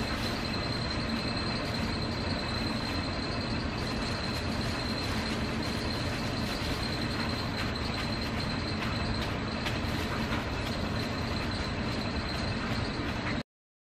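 Steady machine noise, a whir with a faint high whine and a low hum through it, that cuts off abruptly near the end.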